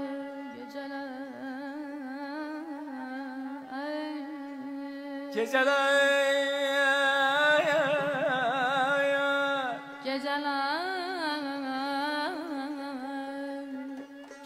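Azerbaijani mugham sung live: wordless vocal melismas with quick trills (tahrir) over instruments holding a steady drone note. The vocal line swells louder from about five and a half to ten seconds in.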